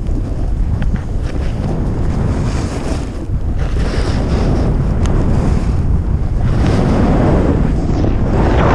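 Wind buffeting the camera microphone while a snowboard scrapes and hisses over groomed snow at speed. The sound swells twice, in the middle and toward the end.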